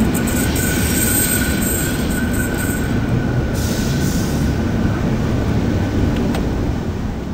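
A train running by on the line, a steady low rumble and rattle with a thin, steady wheel squeal over the first few seconds. It fades away near the end.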